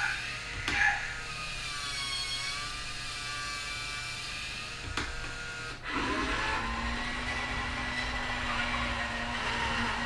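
Small electric drive motors of a Mattel 'The Child' (Baby Yoda) remote-control animatronic toy whirring, the whine wavering up and down in pitch. About six seconds in it changes to a steadier hum as the toy turns and drives across the floor. There is a brief louder blip about a second in.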